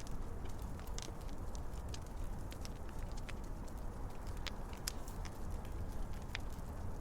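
Fire crackling: irregular sharp pops and snaps, a dozen or so spread unevenly, over a steady low rumbling background noise.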